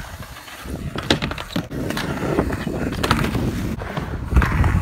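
Skateboard on a wooden mini ramp: the truck scraping on the metal coping during a frontside 5-0, then the board knocking and clattering on the plywood deck as the rider kicks out of the grind. There are sharp knocks about a second in and around three seconds, and heavier thumps near the end.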